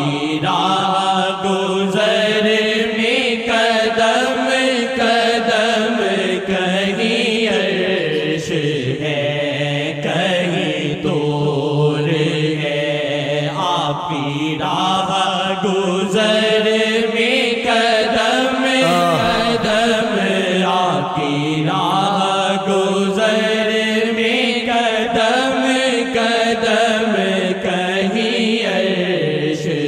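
An Urdu hamd, a devotional hymn in praise of God, sung in long, wavering, held melodic phrases with no steady beat.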